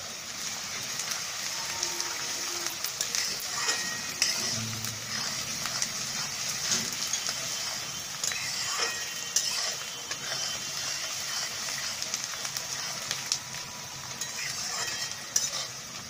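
Chopped onions frying in mustard oil in a metal kadhai, sizzling steadily, while a spatula stirs them and now and then clicks and scrapes against the pan.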